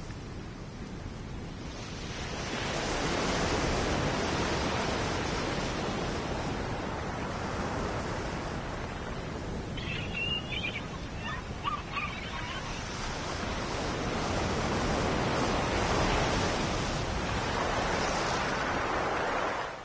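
Sea waves washing onto a beach, a steady rush that swells and eases twice. A few brief high-pitched calls are heard about halfway through.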